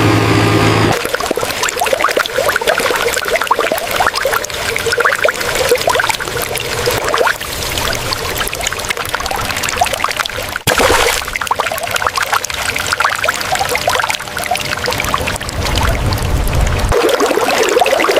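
Water pouring and trickling steadily, with a brief break just past halfway. A machine's engine hum cuts off about a second in.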